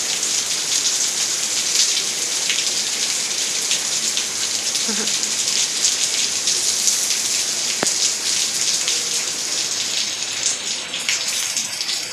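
Heavy thunderstorm rain falling steadily, a dense hiss of drops, with one sharp tick about eight seconds in.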